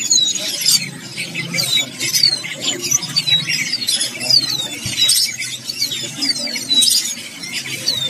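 Young cigun nestlings begging in their cage: a rapid, continuous run of short, high, thin squeaks, each sliding down in pitch, several a second.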